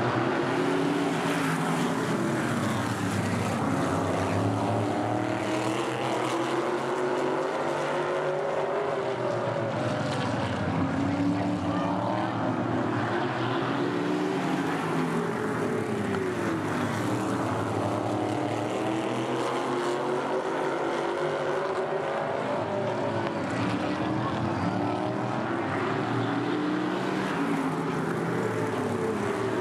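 A pack of modified race cars' engines running at racing speed, several at once, their pitch rising and falling in long sweeps as the cars accelerate and lift around the oval and pass by.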